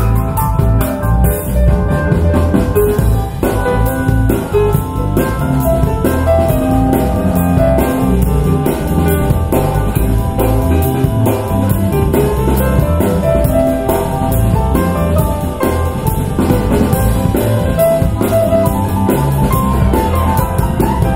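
Live jazz piano with drums playing back through a pair of Paradigm Monitor SE Atom two-way, rear-ported bookshelf speakers, picked up by room microphones about ten feet away.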